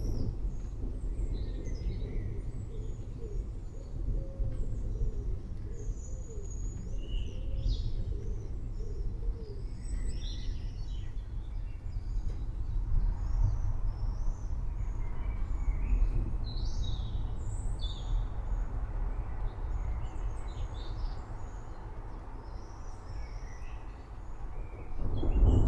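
Birds chirping and calling over the steady low rumble of a thunderstorm. A louder roll of thunder sets in near the end.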